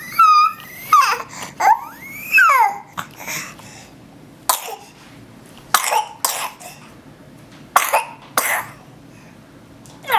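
High-pitched sliding whistle-like calls for about the first three seconds, then a single cough followed by two quick pairs of coughs.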